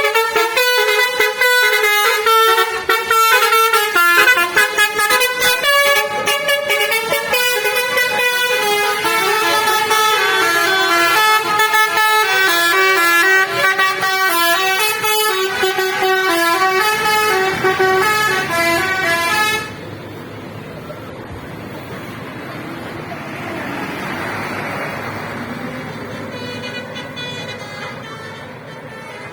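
Indonesian bus "telolet" musical air horn playing a quick tune of stepped notes, cutting off suddenly a little before two-thirds of the way through. After that a quieter rushing sound swells and fades.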